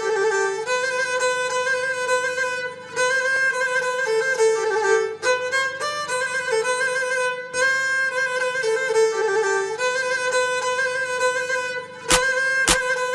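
Instrumental music led by a violin playing a slow melody of long held, wavering notes in repeating phrases. Sharp percussive beats come in near the end.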